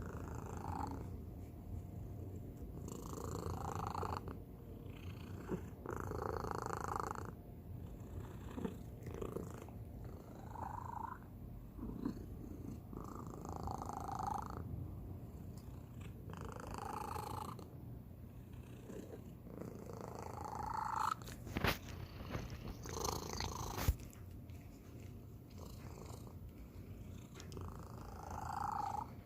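Domestic cat purring close up, a steady low rumble with a higher, tone-like voiced sound about a second long every few seconds; this is an unusual purr rather than a plain one. Two sharp clicks come near the end.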